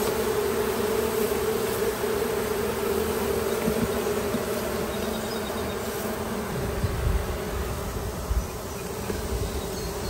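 Honey bee colony buzzing: a steady hum of many bees around the opened hive, easing a little after about six seconds, with a few low bumps near the end.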